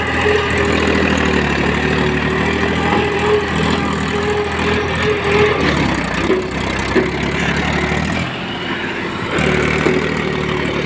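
Mahindra 265 DI tractor's three-cylinder diesel engine running steadily under load as it hauls a loaded trolley up a steep dirt slope. The sound dips briefly about eight seconds in.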